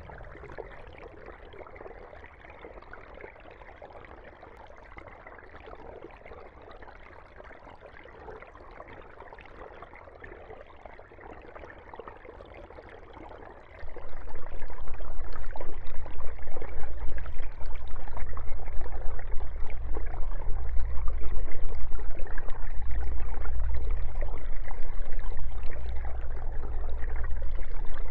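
Aquarium water bubbling: a steady fizzing, trickling wash from a stream of air bubbles rising through the tank. About halfway through, a loud steady low hum comes in and stays, louder than the bubbling.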